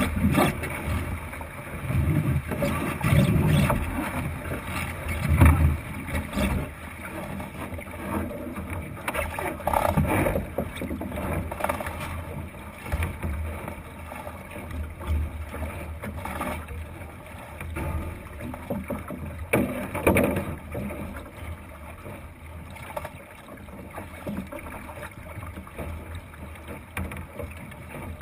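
Water rushing and slapping along the wooden hull of a Thistle sailing dinghy under way, heavier and more uneven for the first few seconds. A few sharp knocks stand out, about ten and twenty seconds in.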